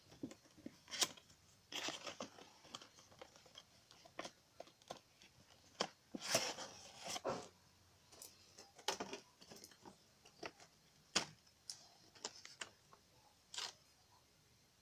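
Clear plastic packaging of a small anime figure and a paperback's cover being handled: scattered clicks, crinkles and short rustles, a little louder around two seconds in and again about six to seven seconds in.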